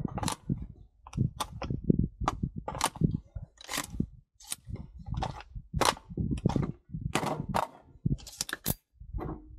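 A string of sharp metallic clicks and clacks from an M4-type CQ-A carbine being worked with a Daniel Defense 32-round magazine: the magazine seated and released and the action clacking, a check of whether the magazine fits and works in the rifle.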